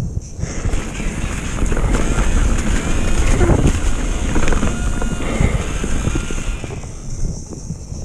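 Mountain bike ridden fast down a dirt trail: wind buffeting the camera microphone over the rumble and rattle of the tyres and frame on rough ground. The noise thins out about seven seconds in.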